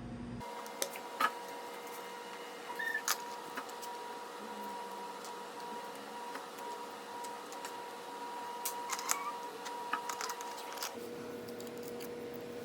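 Toy pizza pieces being handled: scattered light clicks and taps over a steady faint hum.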